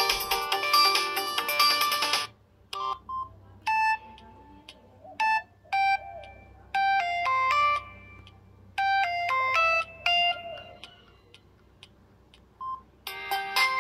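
Samsung SGH-T349 mobile phone playing its built-in polyphonic ringtones. A busy, many-note tune cuts off about two seconds in. A sparse melody of single electronic notes with pauses between them follows, and another busy ringtone starts near the end.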